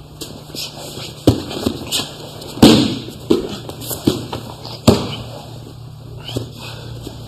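Grapplers scuffling on a padded mat: an irregular run of sharp slaps and thuds from hands, knees and bodies striking the mat, the loudest about two and a half seconds in and another near five seconds.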